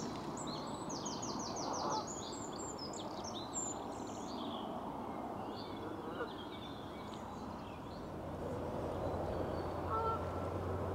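Small birds chirping, with a quick rattling trill about a second in, over a steady low outdoor background. A low hum comes in near the end.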